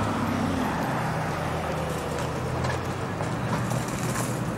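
Steady low hum of a stationary Alstom Citadis tram at a stop, under a general haze of street and crowd noise.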